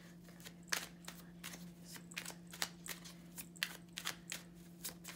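Tarot cards being shuffled by hand: an irregular run of sharp card slaps and flicks, a few a second, over a faint steady hum.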